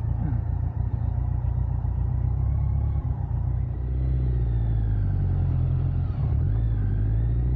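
BMW K100 motorcycle riding along: its inline-four engine runs as a steady low drone that smooths out about four seconds in.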